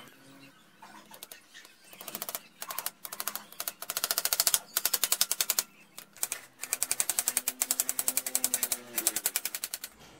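Hand saw cutting a thin wooden strip: a run of short back-and-forth strokes, each a fast rattle of the teeth biting the wood, with brief pauses between the strokes.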